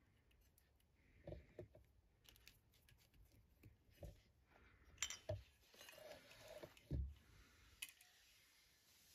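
Faint hand-work noises: scattered light clicks and taps from small parts and wires being handled while wiring a ceiling-fan light kit, with a slightly louder pair of knocks about five seconds in and another about seven seconds in.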